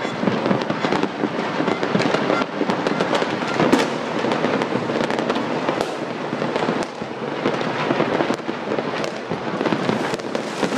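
Fireworks and firecrackers going off all over a city at once: a continuous barrage of many overlapping bangs, pops and crackles with no pause.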